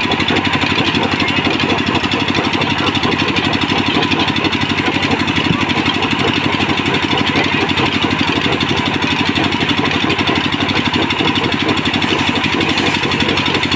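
Large belt-driven band saw running steadily while logs are fed through it, with a fast, even mechanical chugging.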